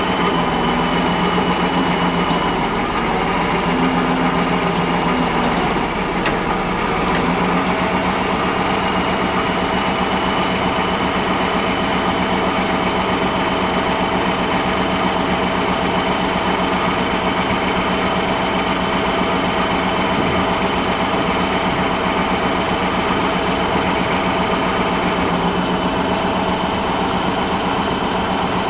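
Large engine idling steadily, a constant even hum.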